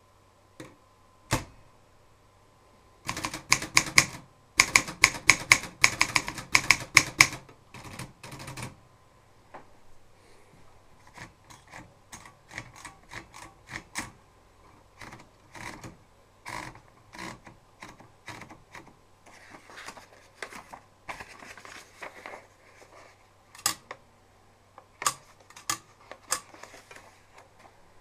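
Red 1960 Brigitte manual typewriter being typed on: a fast run of loud type-bar strikes for about six seconds, then sparser, lighter key clicks with a few sharp single strikes near the end.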